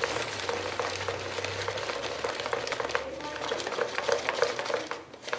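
Cauliflower chunks being shredded in a hand-operated plastic vegetable shredder: a steady crunchy rasping dotted with many small irregular clicks, easing briefly near the end.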